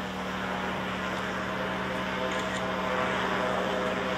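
DJI M600 six-rotor drone hovering, its propellers giving a steady hum with an unchanging low tone.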